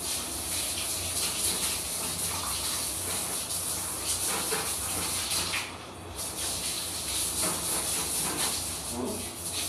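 Water spraying steadily from a hand shower over a dog being bathed, breaking off briefly about six seconds in.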